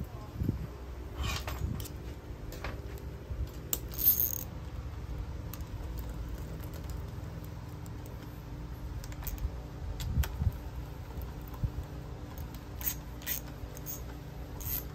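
Small metallic clicks and clinks of a hand driver and bolts against the end cover of a Nikko 24 V starter motor as its through-bolts are driven in, over a steady low hum. The sharpest click comes about four seconds in, and a run of clicks comes near the end.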